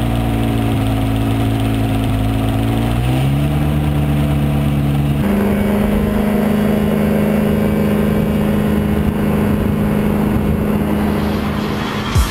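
Rotax 582 two-stroke twin engine of an ultralight trike running, with the propeller and wind noise over it. Its speed steps up twice, about three and five seconds in, as the trike rolls across grass.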